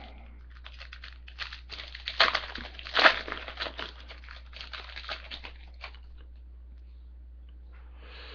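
Trading-card pack wrapper being torn open and crinkled: a dense crackle with two sharper tears about two and three seconds in, stopping about six seconds in.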